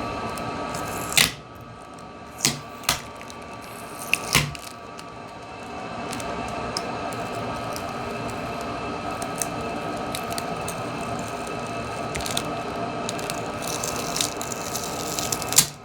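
A few sharp clicks and taps of small hand tools on a smartphone's frame while its battery is being worked loose, several close together in the first few seconds and one more near the end, over a steady hum.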